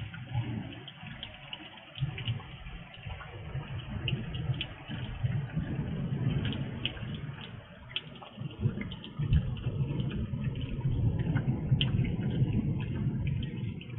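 Rain falling, heard through a security camera's microphone: a steady hiss with many short ticks of drops striking close by, over a low rumble that swells and fades, strongest in the second half.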